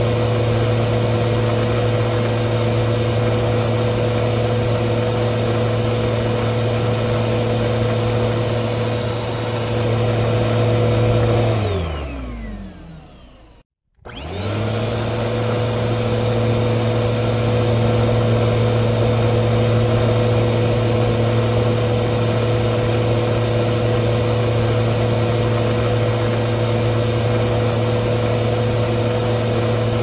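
Vacuum cleaner motor running steadily with a high whine. About twelve seconds in it is switched off and its pitch falls as the motor spins down. After a brief moment of silence it starts again, rising quickly back to full speed, and runs steadily on.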